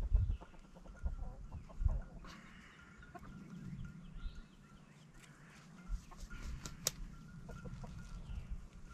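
Chickens clucking in the background, with a few low thumps near the start and about two seconds in.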